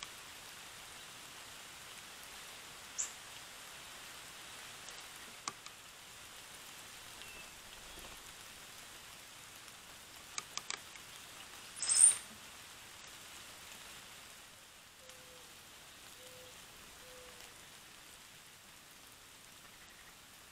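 Trail camera outdoor audio: a steady hiss with scattered sharp clicks, the loudest with a brief high chirp about halfway through, and three short low calls near the end.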